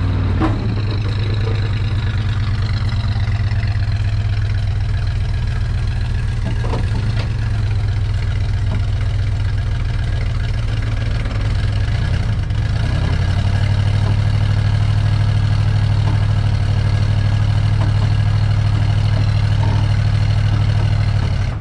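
Chrysler 318 V8 of a 1970 Plymouth Fury III idling on its freshly rebuilt Carter AVS carburetor, running steadily and growing somewhat louder about 13 seconds in.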